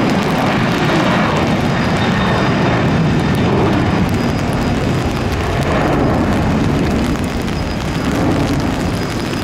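Jet engines of a Boeing 737 at takeoff power as it rolls, lifts off and climbs away: a loud, steady roar, mixed with wind noise on the microphone.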